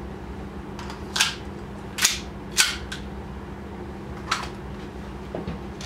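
Handling an airsoft pistol and concealed holster: a few short, sharp clicks and snaps, the loudest three in the first half and another about four seconds in.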